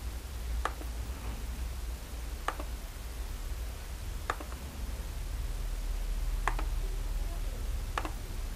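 Computer mouse clicks over a steady low hum: five separate clicks a couple of seconds apart, each a quick double tick of the button pressing and releasing.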